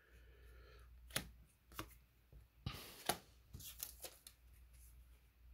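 Trading cards being handled and laid down on a tabletop: a few faint taps, with a short rustle about three seconds in.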